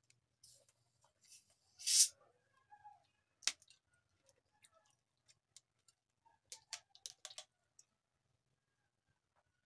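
Screw cap of a plastic Coca-Cola bottle twisted open: a short hiss of escaping carbonation gas about two seconds in, then a sharp click and a few small plastic clicks of the cap being handled.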